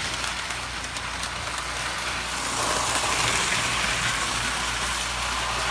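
Lionel postwar O-gauge toy train running on its track: a steady whir from the locomotive's motor and wheels over a low hum, growing louder about two and a half seconds in.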